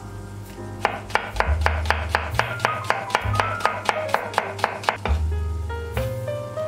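Chef's knife chopping onion on a bamboo cutting board: quick, even knife strikes, about four a second, that stop near the end.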